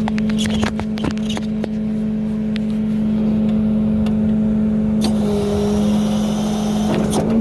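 Logging truck's diesel engine running at a steady speed, with scattered sharp metal knocks and clanks.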